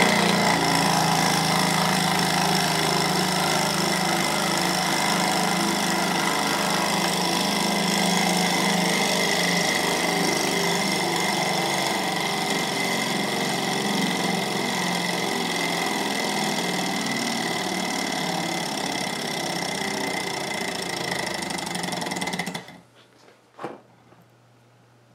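Small twin-cylinder Stirling engine running at speed, its linkages making a fast, steady mechanical rattle while it drives a small generator lighting an LED bulb. Near the end the rattle stops abruptly, followed by a single click.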